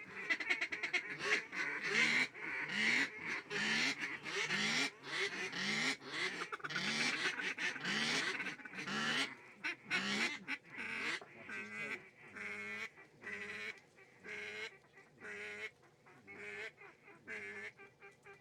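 A long series of quacks and honking duck calls repeated over and over, louder in the first half and fading toward the end.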